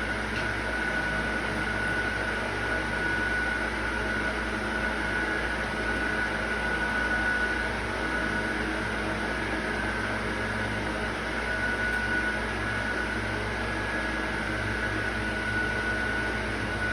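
A steady mechanical hum with a constant high-pitched whine over it, unchanging throughout, like a running fan or motor.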